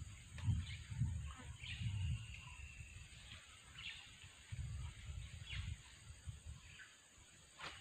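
Outdoor ambience at a fishing spot: uneven low rumbling gusts of wind on the microphone, a steady high hiss, and a few faint bird chirps.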